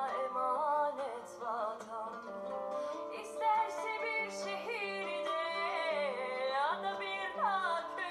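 A song: a sung melody with vibrato and sliding pitches over plucked guitar accompaniment.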